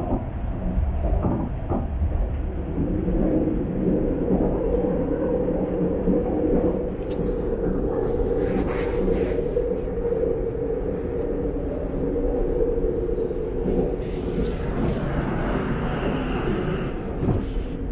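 Beijing Subway Line 15 train running between stations, heard from inside the car: a steady rumble of wheels on the track, joined about three seconds in by a steady hum.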